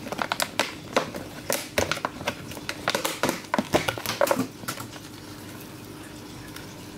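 Clicking and rustling of a container of feeder crickets being handled while a cricket is picked out, a dense run of sharp clicks that stops about five seconds in. A faint steady hum runs underneath.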